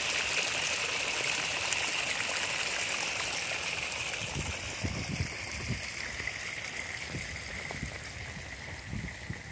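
Water from a pondless waterfall splashing and rushing over rocks, a steady rush that slowly grows fainter. A few soft low thumps come in the second half.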